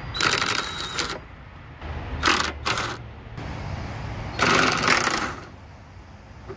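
Cordless impact driver hammering in four bursts, a long one, two short ones and another long one, backing out rusty radiator and condenser fan bolts.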